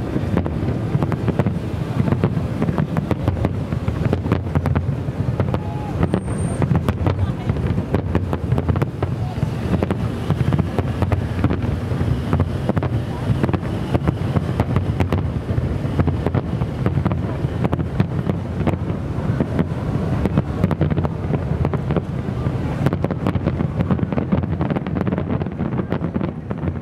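Aerial fireworks display: a continuous barrage of shell bursts, with bangs and crackle packed close together over a steady low rumble.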